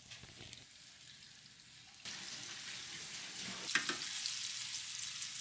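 Walleye fillets coated in egg and cornstarch sizzling in hot oil in a frying pan. The sizzle is faint at first and gets louder about two seconds in, with a single sharp click a little before the four-second mark.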